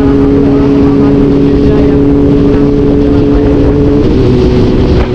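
Sport motorcycle engine running hard at a steady high pitch under a ridden load. About four seconds in, the pitch breaks and drops slightly, as at a shift or a throttle change.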